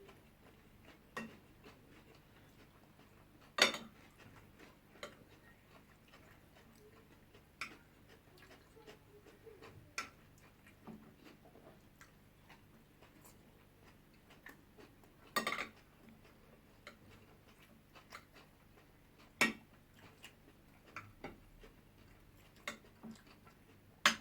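Spoons clinking against plates now and then while eating: scattered sharp clinks at uneven intervals, a few of them louder, over a quiet room background.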